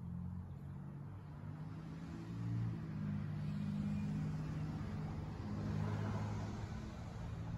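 A motor vehicle passing by: a low engine hum with a rising and easing hiss of tyre and road noise that peaks about six seconds in.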